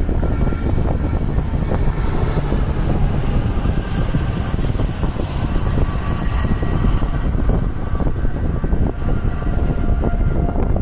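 Strong tornado wind blowing hard against the microphone: a loud, steady rumble heavy in the low end, with constant buffeting and no let-up.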